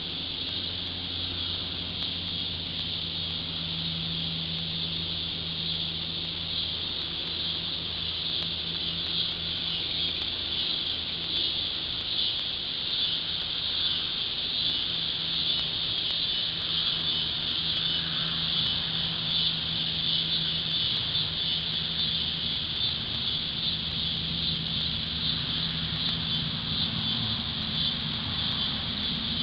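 Steady high-pitched chorus of insects with a fine rapid pulse, with a low steady hum running underneath.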